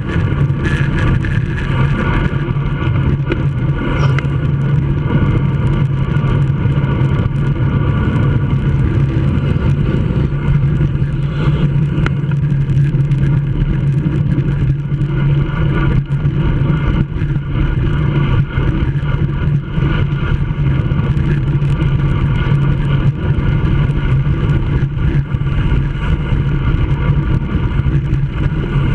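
Steady wind rush and road noise on a handlebar-mounted action camera on a road bike at racing speed, with a constant low hum.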